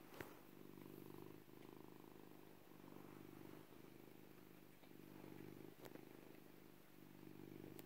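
Domestic cat purring softly and steadily, swelling and fading about every second and a half, with a couple of faint clicks, one about a quarter second in and one near six seconds.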